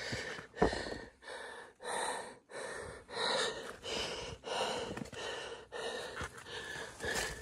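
A hiker breathing hard and fast, about ten heavy breaths in and out in quick succession, winded from climbing a steep trail. A few low footfall thumps come between the breaths.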